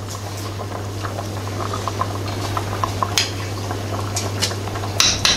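A pot of tripe in tomato sauce and broth bubbling at the boil, growing slowly louder, with a few sharp clicks near the end.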